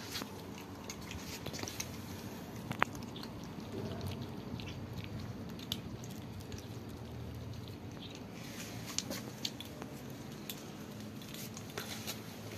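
Cats crunching dry kibble: a steady scatter of small crisp crunches and clicks.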